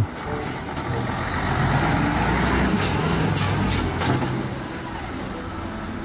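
A fire engine's diesel engine running as the truck drives through a street, with traffic noise and a few short hisses around the middle.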